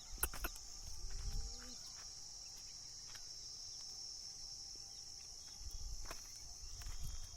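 Steady high insect chirring, like crickets, with a few sharp knocks near the start, a short rising call about a second in, and low rumbling around six to seven seconds.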